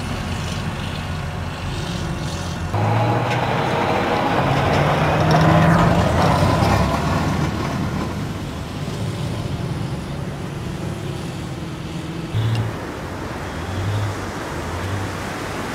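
Tracked amphibious assault vehicles (AAV7) running their diesel engines as they drive off the sand into the surf, with water splashing and waves breaking around them. The mix shifts abruptly about three seconds in and again near the end, as the shots change.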